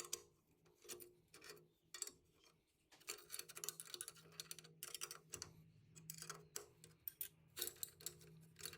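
Faint, irregular light metallic clicks and taps as the finished pulley and its clamps are taken off the lathe faceplate, over a faint steady low hum.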